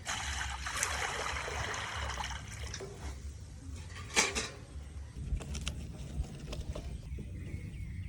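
Water pouring or running for about three seconds, then a sharp knock about four seconds in and a few lighter clicks.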